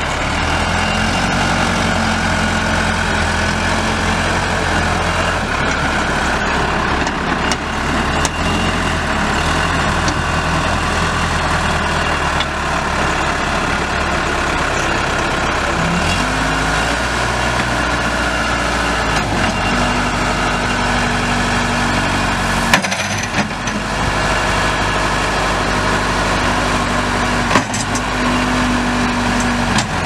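Case 580M backhoe's four-cylinder diesel engine running steadily, its speed stepping up and down a few times, with a brief break in the sound a little past the middle.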